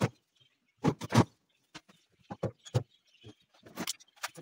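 Irregular knocks and clatter of wooden cabinet boards and tools being handled and fitted, a dozen or so short sharp strikes unevenly spaced.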